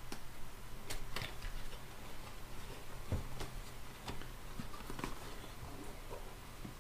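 Cardboard packaging being handled: faint scattered taps, clicks and scrapes as a small box's outer sleeve is unfolded and slid off, over a steady low hum.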